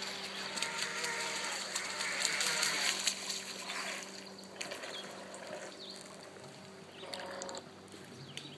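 Litehawk Charger R/C boat running across the water: a steady motor whine under the hiss of the hull and spray. The hiss is louder for the first three seconds and dies down after about four, as the boat comes in beside the dock.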